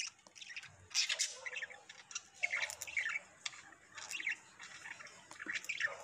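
Budgerigar soft chirping: a loose, irregular run of short, high chirps, the contented sound of a happy bird that is not stressed or scared.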